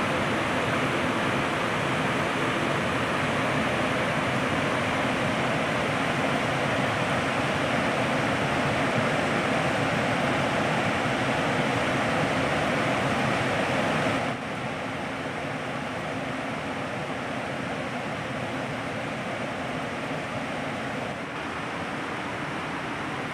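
Steady rush of flowing river water, dropping somewhat in level a little past halfway through.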